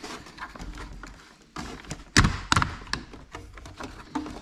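Light taps and clicks of cable plugs being handled and screwed tight onto the back of a Lowrance Elite FS9 fishfinder, with two sharper clicks a little past halfway.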